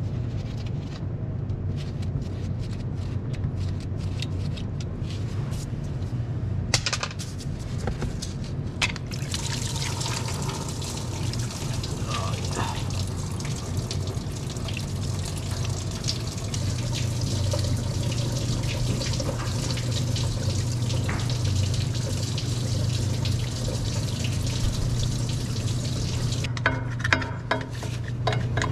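Engine coolant pouring and splattering out of the N14 Cummins block's heater-element port as the block heater is unbolted. The pour starts about seven to nine seconds in and runs steadily until near the end, after a few light clicks of tool work. A steady low hum runs underneath.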